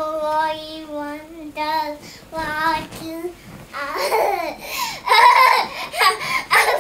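A toddler singing wordless held notes in a high voice, several in a row, then about four seconds in breaking into loud babbling that is the loudest part.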